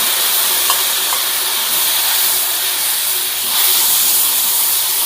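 Hot pot base, sour chili and red sour soup sizzling as they fry in hot oil in the pot: a steady hiss, with a single light click a little under a second in.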